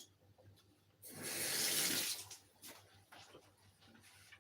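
Kitchen tap running in a short gush of a little over a second, starting about a second in, followed by a few faint knocks.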